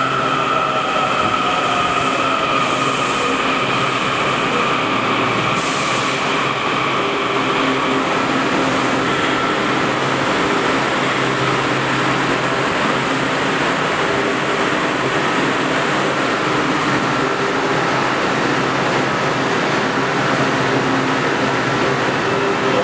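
Kawasaki 7000-series Metrorail train slowing into the station: the motor whine falls in pitch over the first few seconds, over steady wheel and rail noise that carries on as the train comes to a stand.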